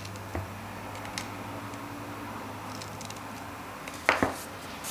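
A steady low hum with a few faint ticks of a small screwdriver on brass screws in a metal lid, then a couple of louder knocks about four seconds in as the metal lid is handled.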